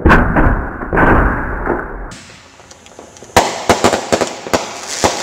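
Consumer fireworks going off: a sudden loud burst with a rushing noise that lasts about two seconds, then from about three and a half seconds in a rapid string of sharp crackling pops.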